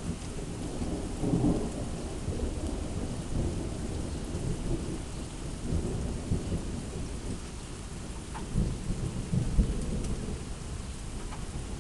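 Heavy summer rain falling steadily, under a low, uneven rumble that swells and fades several times.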